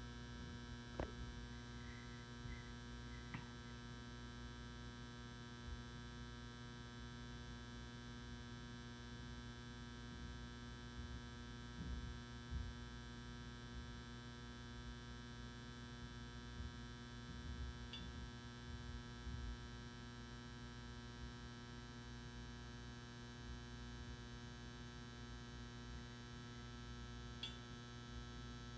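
Steady electrical hum with a ladder of even overtones from an M59 magnetic metal halide ballast running a 360-watt high pressure sodium retrofit lamp while it warms up, with a few faint ticks.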